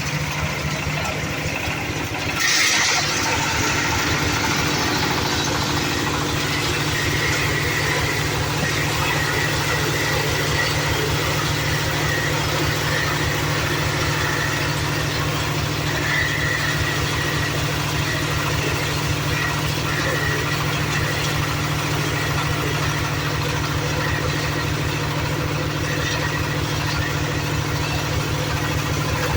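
An engine idling steadily with an even low rhythm; about two and a half seconds in there is a brief burst of noise, after which it runs slightly louder.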